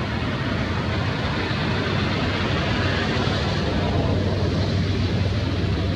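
Steady low rumble with an even hiss over it, swelling slightly midway.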